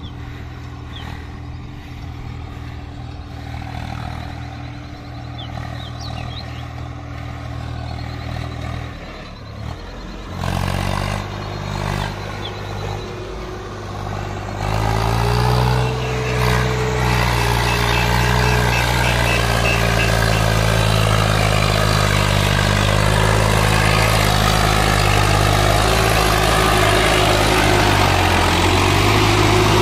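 Swaraj 744 XT tractor's three-cylinder diesel engine working under load as it pulls a fully loaded trolley, getting louder as it comes closer. About halfway through the note steps up and then holds loud and steady, rising a little, as the engine labours hard enough to lift the tractor's front wheels.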